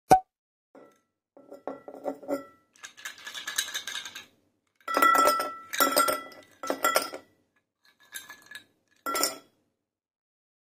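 Ice cubes tipped from a ceramic mug into a tall glass tumbler, clinking and rattling against the glass, which rings. The clinks come in a run of separate bunches and are loudest in the middle, after one sharp knock at the very start.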